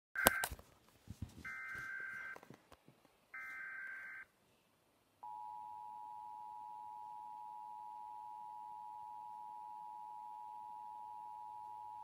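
Emergency Alert System broadcast test played through laptop speakers. A loud click at the start, then two roughly one-second buzzy data bursts of the SAME header, then about five seconds in the steady two-tone EAS attention signal begins and holds.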